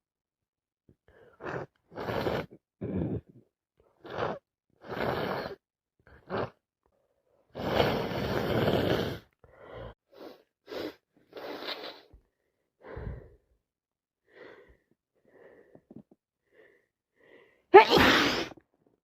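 A person with a heavy cold sniffing and catching short gasping breaths, with a longer noisy breath out about eight seconds in. Near the end comes one loud, sudden sneeze.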